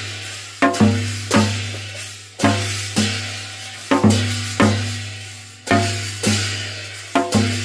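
Korean shaman-ritual (gut) percussion: about ten strikes, mostly in pairs, each leaving a low hum and a bright shimmer that die away slowly before the next pair.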